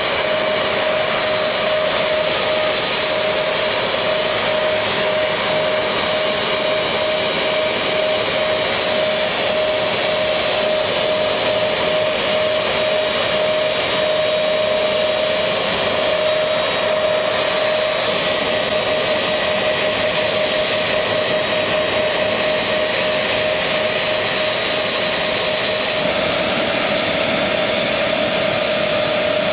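Lockheed C-5 Galaxy's turbofan engines running at idle on the ramp: a steady jet whine over a constant rushing hiss. The high part of the whine drops out near the end.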